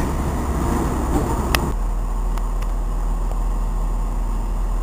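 Rumble of a train moving through a covered station, with one sharp click about a second and a half in. Then an abrupt cut to a steadier, deeper rumble as another train approaches the platform.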